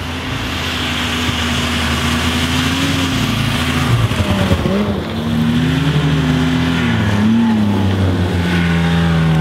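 Snowmobiles riding past one after another, engines running continuously with pitch rising and falling as the throttle opens and eases. The loudest moment comes about four seconds in, as the first sled passes close.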